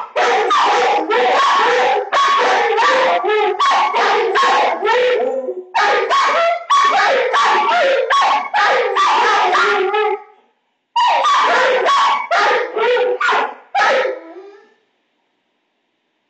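A dog barking, yipping and whining in rapid, repeated bursts, pausing once briefly, then cutting off suddenly near the end.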